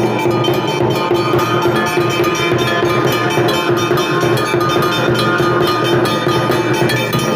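Hindu temple bells rung rapidly and without pause: a dense clatter of strikes over overlapping, held ringing tones.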